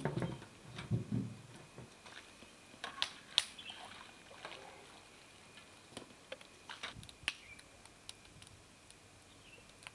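Metal cookware being handled over a large wok of boiling water on a wood-fired stove: a few low knocks at the start, then scattered sharp clinks and clicks, loudest about three seconds in.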